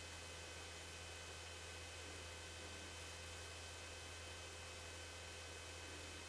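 Faint steady low hum under an even hiss, with a few thin steady whine tones: a light aircraft's cockpit audio heard through the intercom feed, the Cessna 150's engine drone muffled behind it.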